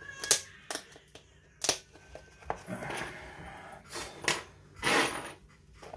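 Plastic container and packaging being handled: a string of sharp clicks and snaps, about half a dozen, with short crinkling rustles between them.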